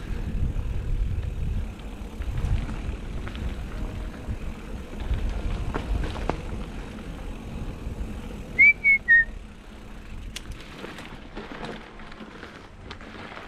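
Mountain bike riding over a dirt trail with a low rumble, then three short, loud, high-pitched squeals about two-thirds of the way in, after which the rumble dies down.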